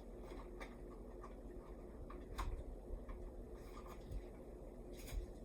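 Faint, scattered light clicks and knocks of handling and moving about, a few seconds apart, over a low steady background hum.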